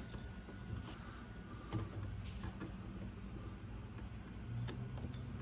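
Faint clicks and scrapes of a hand driver tightening small screws into an RC crawler's servo mount, over a low steady hum.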